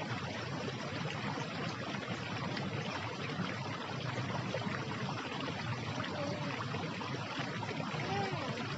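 Steady, even rushing noise with a few faint short tones about six and eight seconds in.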